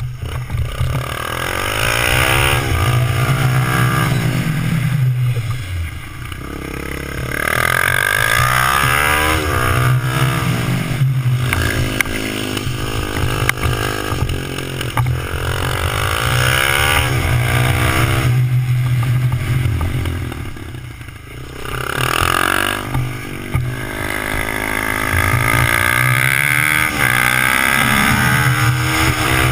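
Small Suzuki motorcycle's engine revving up and easing off over and over as it is ridden round a cone course, its pitch climbing with each burst of throttle and dropping back, with two brief lulls where it slows down.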